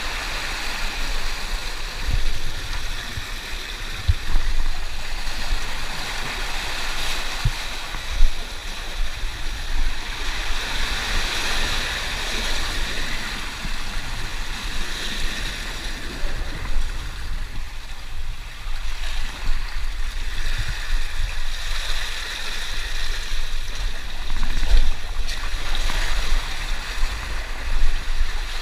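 Seawater washing and surging over a rocky intertidal reef, swelling and ebbing as waves wash in, with a few dull thumps.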